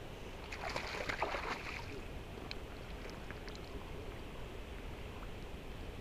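Steady low wind rumble on the microphone, with a short burst of crackling and rustling from about half a second to two seconds in and a few faint clicks after.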